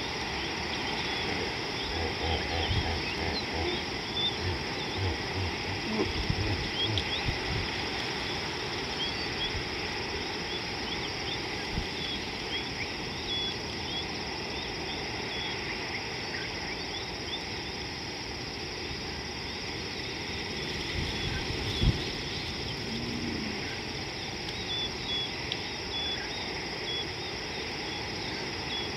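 Bush ambience: a steady high insect drone with many short, high chirps scattered through it, and a few low thumps, the sharpest about three-quarters of the way through.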